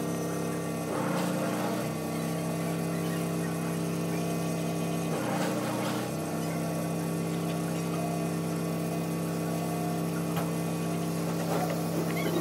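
A small electric motor runs with a steady hum, its sound shifting briefly twice, about a second in and again about five seconds in.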